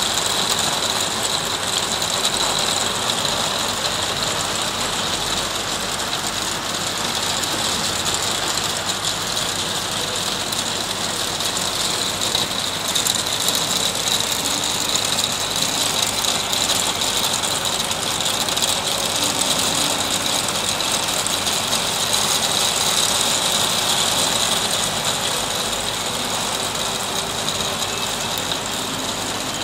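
Hail shower pelting a conservatory roof and the garden below, a dense, steady rattle of countless small impacts.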